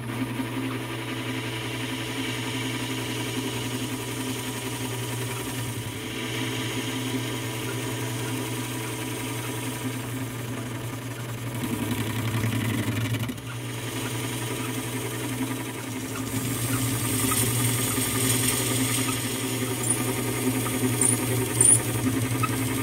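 Metal lathe running steadily while a triangular ceramic insert faces off the end of a 3 lb steel sledgehammer head. The cutting hiss grows louder from about two-thirds of the way in, with a few sharp ticks near the end.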